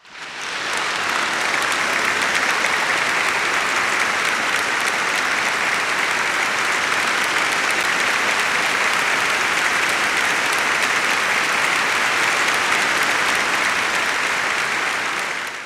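Audience applause: many hands clapping in a dense, steady wash that fades in over the first second and fades out near the end.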